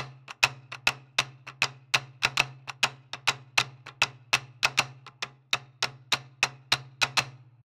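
Background music: a sharp, clicking percussion beat at about three strikes a second over a low steady drone, cutting off abruptly near the end.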